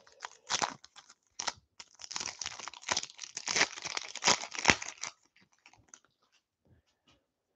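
Wrapper of a hockey trading-card pack being torn open and crinkled by hand. A dense run of crackling comes from about two to five seconds in, then only a few faint ticks.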